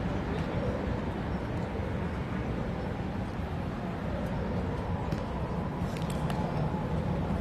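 Steady low rumble of outdoor background noise, with a few faint sharp knocks about five to six seconds in.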